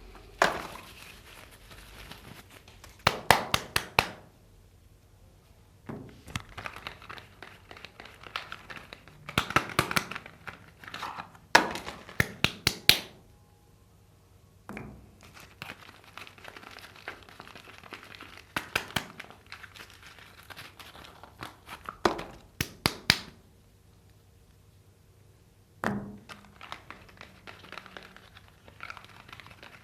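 Soap bar wrappers being crinkled and torn open by hand: bursts of rustling with sharp crackles and clicks, broken by short pauses.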